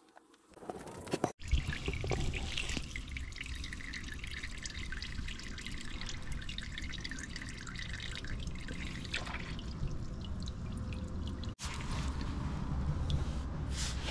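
Old motor oil draining in a steady stream from the oil pan's drain hole during an oil change. The sound breaks off sharply twice, about a second in and again near the end.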